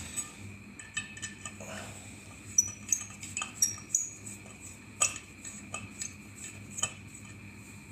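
Light metallic clicks and clinks scattered irregularly through, some with a brief high ring, as the metal parts of a log burner fan (finned aluminium heatsink body and small screws) are handled and fitted together.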